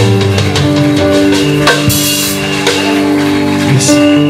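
Worship band music between sung lines: long held chords with a steady beat of drum and cymbal hits.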